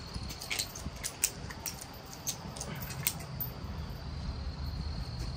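Scattered light scrapes and knocks of loose soil being worked by hand into the hole around a wooden utility pole, about one every half second. A faint, steady, high thin whine runs underneath.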